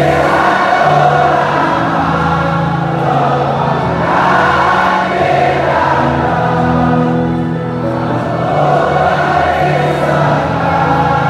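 A large stadium crowd of football supporters singing a slow chant in unison, thousands of voices holding long notes together.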